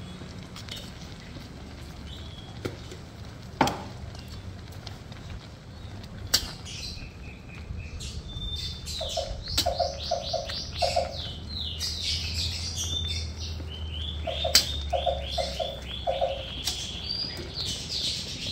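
Birds chirping in quick repeated trills, starting a little under halfway through, with two short runs of four or five lower notes. Earlier, a few sharp clicks of a metal ladle against a steel pot stand out over a steady low hum.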